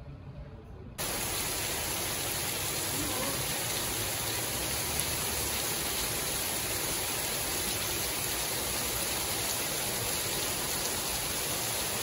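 Heavy rain pouring down onto a street, an even, dense hiss that sets in abruptly about a second in after a quieter stretch of low background hum.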